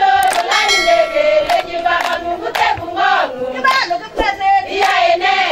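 A group of people singing together, their voices rising and falling in pitch.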